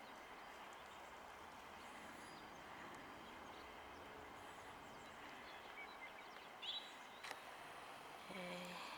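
Quiet outdoor ambience: a steady faint hiss, with a few short, high chirps from distant birds and a small click about seven seconds in.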